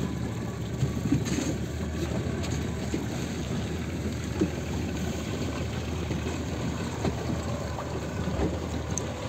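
A motorboat under way: a steady engine hum mixed with wind and the rush of water.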